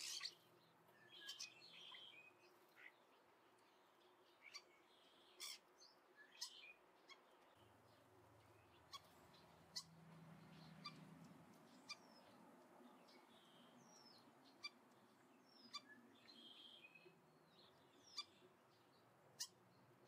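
Faint, irregular sharp taps of a Steller's jay's bill picking at food in a bird feeder, about a dozen scattered through the stretch, with a few short high bird chirps between them.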